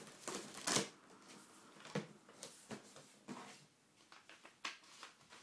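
Packing tape being ripped off a cardboard box, loudest under a second in, followed by the cardboard flaps being pulled open, with scattered scrapes, rustles and taps of cardboard.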